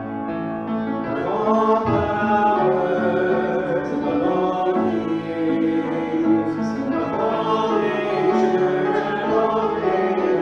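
Singers performing a worship song to grand piano accompaniment, the voices coming in about a second in over the piano introduction.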